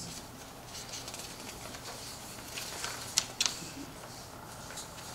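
Room tone of a meeting room with a steady low hum, broken by two sharp clicks a fraction of a second apart about three seconds in, with a few fainter ticks.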